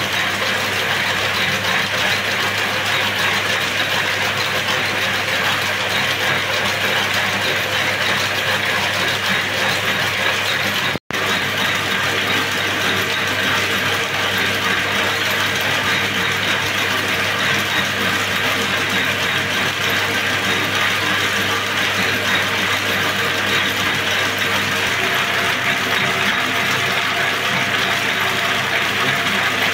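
Bobbin braiding machine running at speed, its rotating bobbin carriers and gears making a steady, dense mechanical clatter as it braids silk cord. The sound cuts out for an instant about eleven seconds in.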